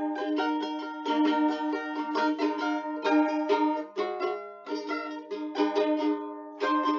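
Background music: a plucked string instrument picking quick notes, with no singing.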